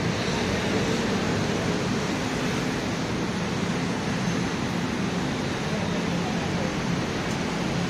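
Steady city street noise: a constant wash of traffic and a busy pavement.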